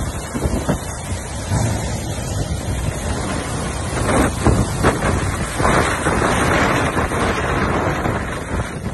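Cyclone-force wind gusting and buffeting the microphone, over heavy rain lashing the street. The gusts surge about four seconds in and hardest from around six seconds.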